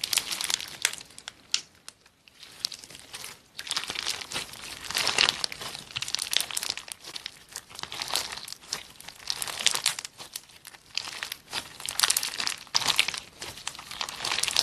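Slime being squeezed and kneaded by hand, giving dense crackling and popping that comes in waves, with a short lull about two seconds in.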